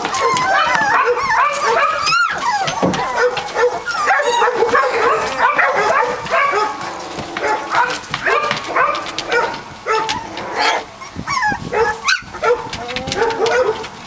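A litter of three-week-old Catahoula Leopard Dog puppies whining and yipping together: many short, overlapping high cries, one after another with no let-up.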